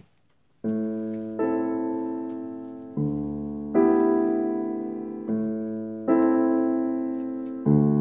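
Piano interlude music: after a short silence, slow sustained chords are struck in pairs, each left to ring and fade.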